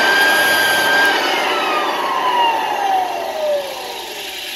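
Clarke American Sanders Super 7 floor edger running at full speed with a loud, steady high whine. About a second in it is switched off and winds down, the whine falling steadily in pitch as the disc spins toward a stop. This is a brief test run with the pad touched to the floor to check where the disc cuts after a wheel adjustment.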